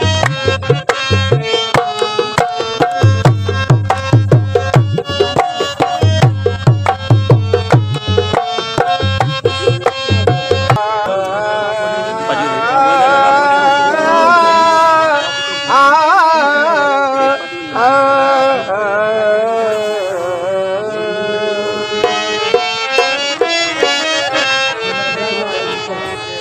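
Qawwali music: tabla drumming over held harmonium tones. About eleven seconds in the drumming stops and a wavering, sliding melody carries on over the held tones.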